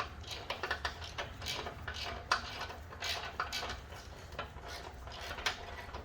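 Irregular metallic clicks and clinks of a 15/16 wrench working on steel bolts as they are tightened down, over a steady low hum.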